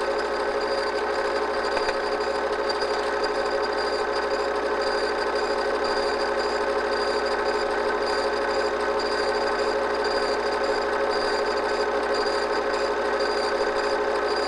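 Steady mechanical whir of a home-movie film projector running, a constant hum with several steady tones and no change throughout.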